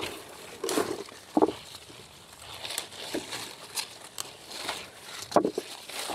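Rustling and crinkling of aronia bush foliage and berry clusters as they are picked by hand, with a few sharper, louder rustles.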